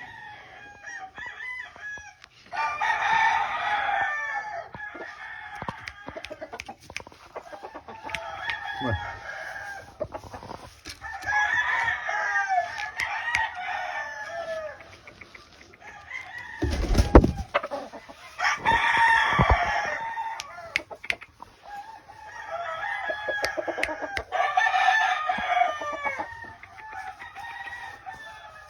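Gamecock roosters crowing one after another in long bouts, with clucking and softer calls between them. A brief loud low thump cuts in a little past the middle.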